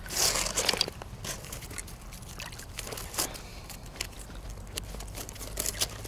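A burst of rustling in the first second, then scattered small clicks and crunches: close handling noise.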